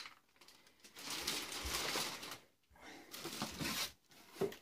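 Plastic packaging rustling and cardboard box flaps being handled around a MIG welder's bagged torch and hose, in two stretches of about a second each, with a short knock near the end.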